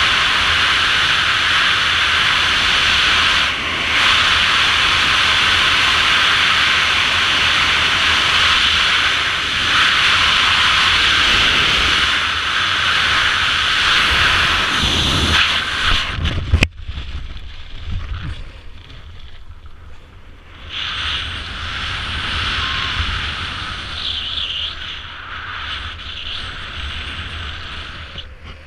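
Strong steady wind rushing over a wingsuit flyer's helmet camera at flight speed. About sixteen seconds in there is a brief sharp snap and the rush cuts off suddenly, leaving softer, uneven gusts of wind.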